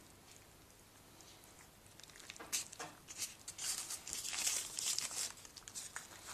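Baking paper crinkling and rustling under hand-folded puff pastry, a run of short crisp crackles starting about halfway through.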